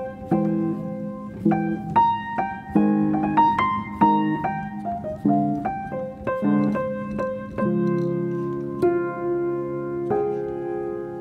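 Background piano music: a melody of struck notes, about two a second, each ringing and fading.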